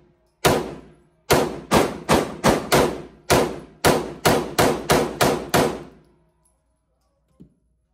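Semi-automatic pistol fired about a dozen times in quick succession on an indoor range, each shot ringing off the walls; the shots stop about six seconds in. A faint knock near the end.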